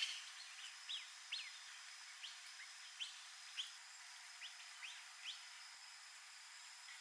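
A bird giving a run of short, sharp chirps, each a quick slide up or down in pitch, about ten of them over five seconds. A faint steady high whine runs underneath.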